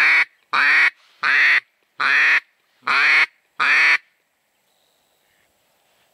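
Hand-blown hen-mallard duck call giving a run of six loud, drawn-out quacks, evenly spaced, that stops about four seconds in. It is a spring call to lure drakes in to the decoy.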